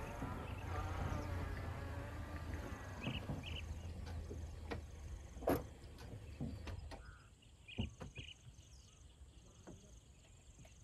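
A small hatchback car's engine running as it drives slowly across grass and stops, its low hum dying away about seven seconds in. Insects chirp in short repeated pulses throughout, and a few sharp clicks come as the car stands.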